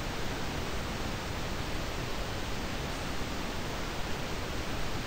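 Steady, even background hiss of a recording's noise floor, with no distinct events.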